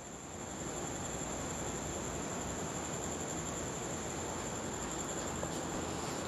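Steady room noise: an even hiss with a continuous high-pitched whine running through it.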